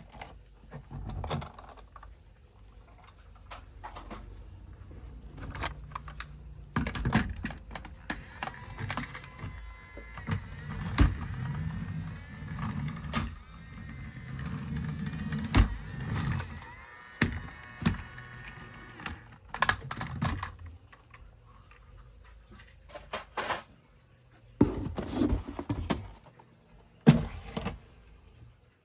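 Plastic toy vehicles being handled, with scattered clicks and knocks. In the middle a small electric toy motor whirs steadily for about ten seconds.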